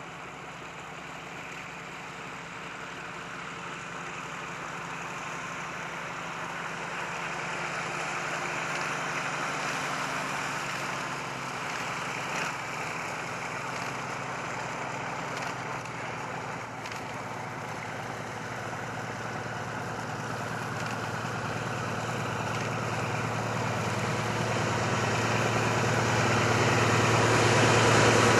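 Diesel locomotive on a 760 mm narrow-gauge line approaching, its engine running at a steady pitch and growing steadily louder, most of all over the last third.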